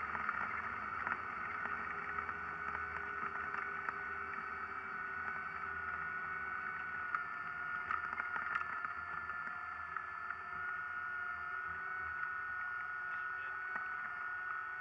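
Piper Turbo Aztec's twin turbocharged six-cylinder Lycoming engines and propellers running steadily as the aircraft rolls along the runway, with a steady high whine over a low rumble. Heard inside the cockpit.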